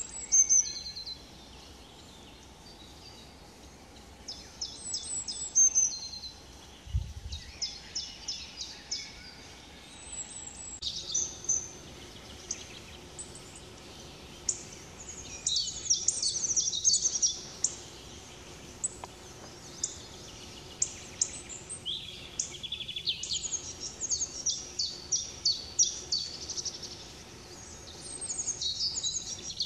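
Wild songbirds singing in woodland; from about a third of the way in, a European robin sings its high, varied phrases of thin whistles and quick trills, with short pauses between them.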